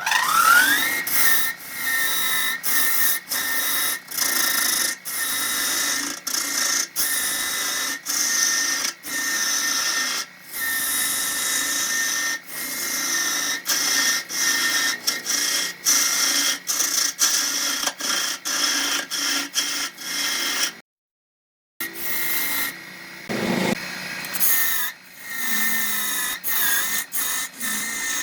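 Wood lathe spinning up with a rising whine, then running at a steady high whine while a turning tool cuts the spinning wood with a hiss. The sound breaks off many times for a moment, with one full gap of about a second about two-thirds of the way through.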